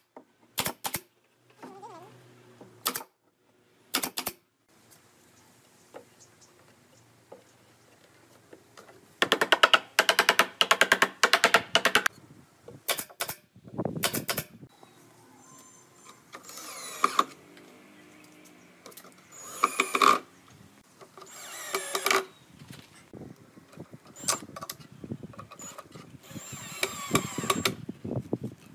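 Pneumatic F30 brad nailer firing nails into pine boards: single sharp shots a second or two apart at first, then a quick run of shots about nine seconds in. Later come longer scraping and knocking sounds as the wooden box is handled.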